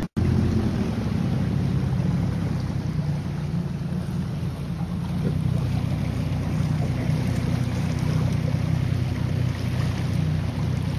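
A Craig Cat's outboard motor running at a steady cruising speed, with wind and rushing water.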